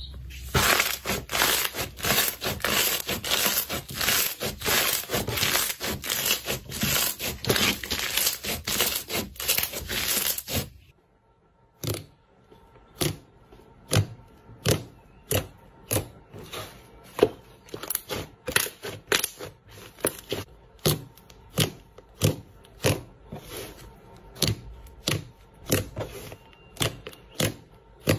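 Hands squeezing and working slime. For about the first ten seconds there is a dense run of crackling and popping. After a brief pause come separate sticky pops and clicks, about two a second, as fingers poke and press a soft poke slime.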